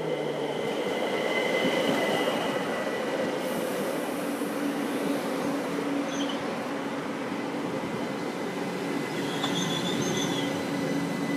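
ÖBB class 4024 Talent electric multiple unit rolling slowly past as it slows into the station, a steady rumble of wheels on rails with a faint steady hum. Short high-pitched squeals from the wheels and brakes come in about nine and a half seconds in.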